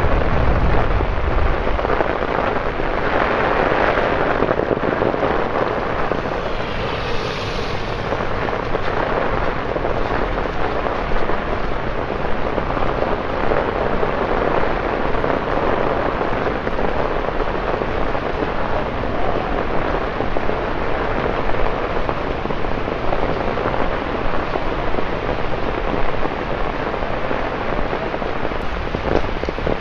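Steady rain falling on wet paving: an even hiss that swells louder for a few seconds around four to eight seconds in.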